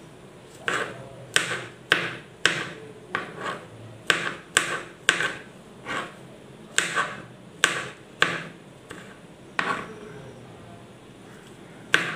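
Kitchen knife chopping button mushrooms finely on a plastic cutting board: the blade knocks on the board in an irregular run of about two strikes a second, pausing near the end.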